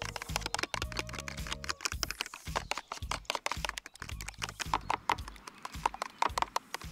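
A metal fork beating raw eggs in a plastic tub: fast, light clicking of the tines against the plastic, several strokes a second.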